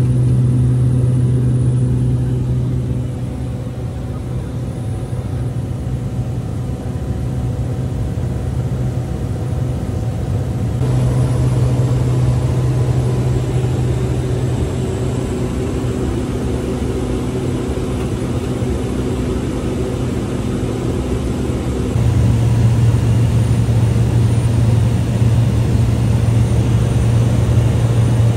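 Cessna Caravan's Pratt & Whitney PT6A turboprop and propeller droning steadily in flight, heard from inside the cabin: a deep, even hum with fainter steady tones above it. It steps up abruptly in loudness twice, about eleven and twenty-two seconds in.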